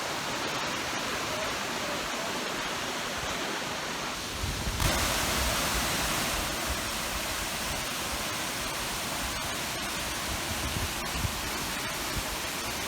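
Steady rushing of a mountain waterfall, turning a little louder and brighter about five seconds in.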